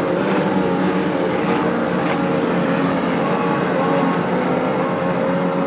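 Racing powerboat's engine running at high speed as the boat planes past, a steady engine note with the wash of water beneath it.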